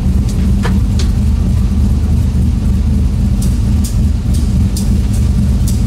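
Turbocharged 4.8 V8 truck engine running steadily at light throttle in third gear, heard from inside the cab, its rear tires turning the dyno rollers ahead of a power pull. A few light clicks come through at irregular moments.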